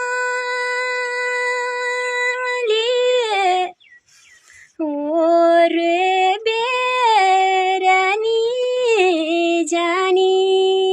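A high female voice singing long held notes with slides between pitches, breaking off for about a second near four seconds in before carrying on.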